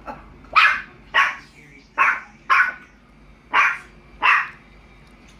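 A maltipoo barking six times in short, sharp barks, spaced unevenly over about four seconds.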